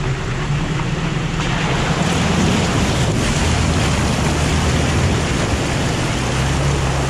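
Toyota Tacoma fording a rocky creek, its front tyre churning through the water in a steady splashing rush, with the engine running low underneath.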